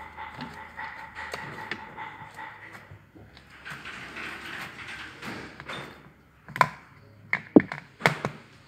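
Slime being squished and worked in the hands, soft and wet in the middle, then a run of sharp sticky pops and clicks over the last two seconds. A steady high hum sounds under the first few seconds.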